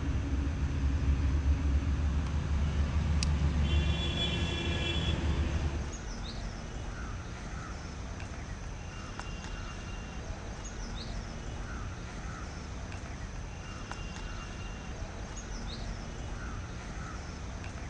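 A loud, low engine-like rumble for the first six seconds, which cuts off suddenly. After it, a quieter outdoor background in which a bird gives a short call about every two seconds.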